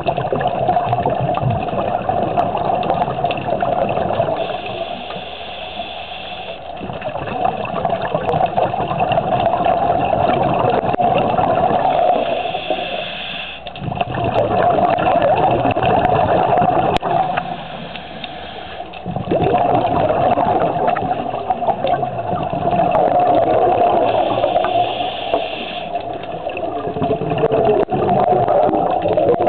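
Scuba diver breathing through a regulator underwater: a short hissing inhale alternating with a longer, louder rush of exhaled bubbles, about one breath every five to six seconds, four breaths in all.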